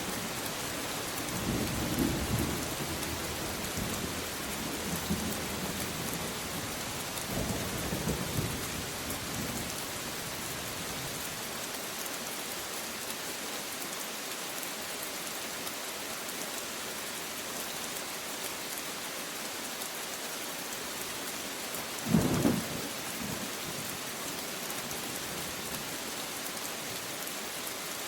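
Steady rain with thunder: low rolling rumbles through the first ten seconds or so, then a short, sharper thunder crack about 22 seconds in, the loudest moment, over the constant hiss of the rain.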